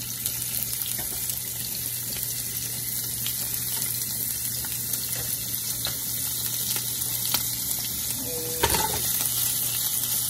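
Diced smoked bacon sizzling in hot fat in a pan: a steady hiss with small scattered crackles, and a brief knock about nine seconds in.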